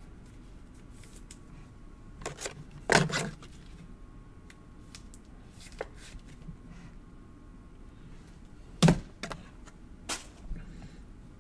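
A trading card being handled and slid into a clear plastic card holder, then set down: a few sharp clicks and knocks of plastic and card on the table, the loudest about three seconds in and again near nine seconds, with quiet rustling between.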